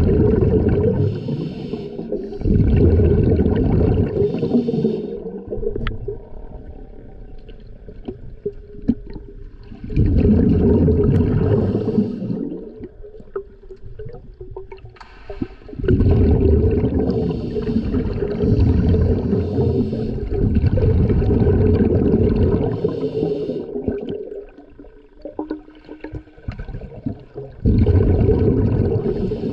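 Scuba diver breathing through a regulator underwater, heard from a camera on the diver: about four bursts of exhaled bubbles, a few seconds each and one much longer, with quieter gaps between them.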